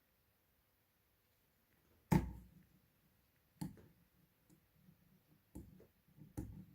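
Hands working on an opened mobile phone: a short quiet, then four separate knocks and taps about a second or two apart, the first the loudest, with faint handling rustle between them.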